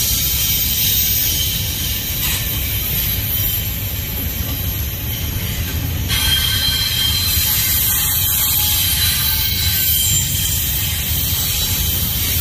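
Double-stack intermodal freight cars rolling past: a steady rumble of wheels on rail with high-pitched squealing above it, which grows brighter about halfway through.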